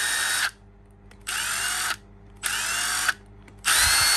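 Milwaukee M18 Fuel 2853 brushless cordless impact driver run without load in short trigger pulls: four bursts of motor whine, the first already running and stopping about half a second in, the other three each rising in pitch as the motor spins up, with brief gaps between.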